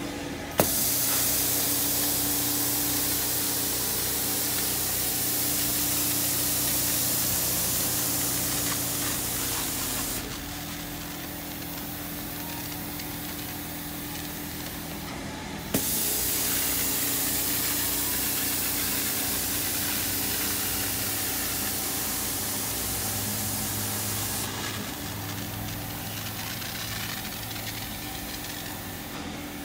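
Janilink portable carpet extractor running steadily with a motor hum, while its wand sprays and sucks cleaning water through the carpet. Each pass is a long loud hiss that starts with a sharp click of the trigger valve: one starts about half a second in and runs about ten seconds, and another starts about sixteen seconds in and fades after about nine seconds.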